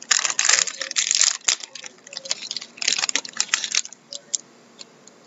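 Hockey card packs being handled: wrapper crinkling and tearing and cards clicking against each other, in bursts of rustles over the first three seconds, then a few scattered clicks.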